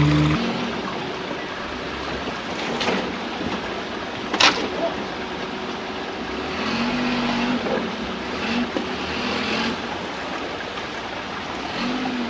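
Small Suzuki Jimny 4x4 engine running as it crawls slowly over boulders in a rocky stream bed, its note rising in short spells, with a sharp knock about four and a half seconds in as the vehicle strikes rock.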